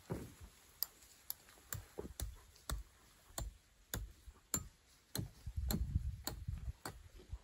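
Hammer striking a tie-down stake, driving it into the ground with about a dozen sharp blows, roughly two a second.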